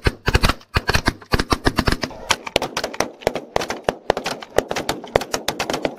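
Several shotguns firing together in rapid, overlapping volleys: a dense run of sharp shots, about five or six a second, some loud and some fainter.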